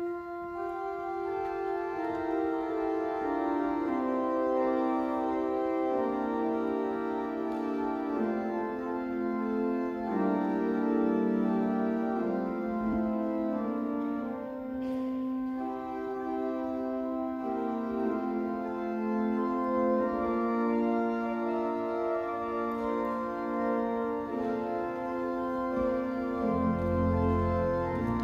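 Organ playing slow, sustained chords that move step by step, with no beat. Deep bass notes come in near the end.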